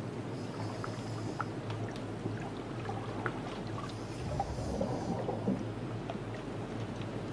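Underwater ambience: a steady wash of water noise over a constant low hum, with scattered small clicks and a low swell about four to five and a half seconds in.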